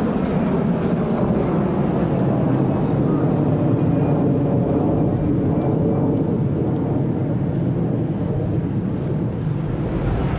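Steady low rumble of an airliner's engines, easing slightly near the end.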